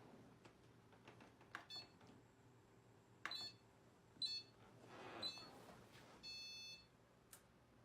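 Electronic beeps: three short high beeps about a second apart, then one longer beep, after a couple of faint clicks.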